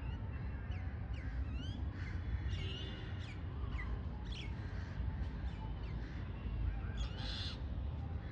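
Birds calling over and over: quick chirps and short whistled glides, with a harsher call about seven seconds in, over a steady low rumble.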